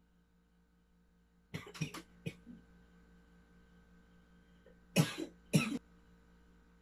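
A person coughing: a quick run of short coughs about a second and a half in, then two sharp coughs near the end.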